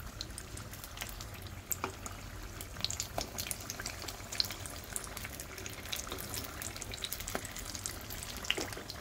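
Samosas deep-frying in hot oil in a kadhai: a steady bubbling sizzle with a dense crackle of small pops and a few sharper clicks.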